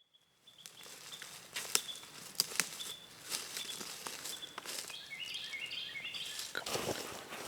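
Woodland ambience: scattered clicks and rustles, with a bird calling a quick run of short notes about five seconds in, and rustling footsteps in dry leaves starting near the end.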